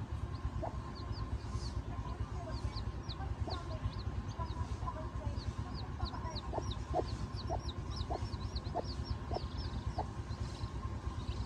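Newly hatched chicks peeping, a quick run of short high cheeps that fall in pitch. A mother hen with them gives short low clucks, a few early on and then a steady run about twice a second for several seconds in the second half. A steady low rumble runs underneath.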